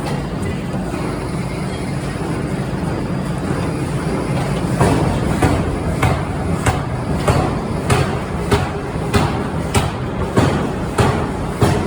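Forging machinery running with a steady low rumble. About five seconds in, a power hammer starts striking metal in an even rhythm, a little under two blows a second.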